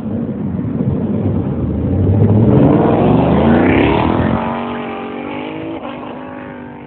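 Ford Mustang with a loud exhaust accelerating hard from a standstill, its revs climbing sharply for a couple of seconds. The sound then eases and fades, falling slightly in pitch as the car pulls away.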